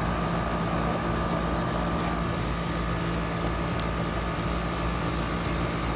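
A 5-ton Concord heat pump running steadily in cooling mode: a constant hum with a steady higher whine. The unit is frozen up on the suction line, which the owner puts down to a clogged filter or a refrigerant leak.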